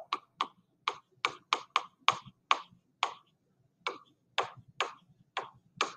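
Stylus tip tapping and clicking on a tablet screen while handwriting: about fourteen short, sharp clicks at an uneven pace, two or three a second.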